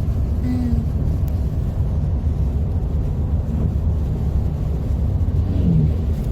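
Steady low road rumble of a car driving on a wet, slushy, snow-covered road, heard from inside the cabin: tyre and engine drone.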